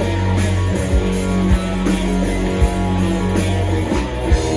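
Live rock band playing an instrumental stretch between sung lines: guitars over a held bass note, with drum kit hits about once a second.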